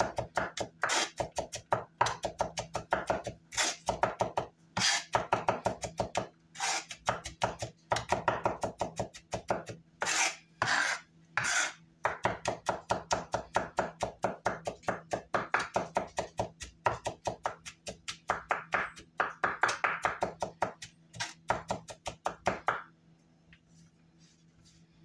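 Chef's knife mincing garlic on a bamboo cutting board: rapid, repeated chopping strikes of the blade against the wood, several a second, stopping shortly before the end.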